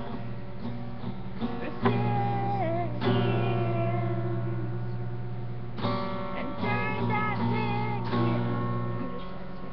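Two young women singing together to a strummed acoustic guitar, with chords struck afresh every second or few and left to ring under the voices.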